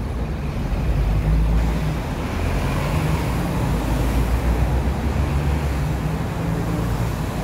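Steady road traffic on a busy city street: a continuous low rumble of vehicle engines and tyres going by.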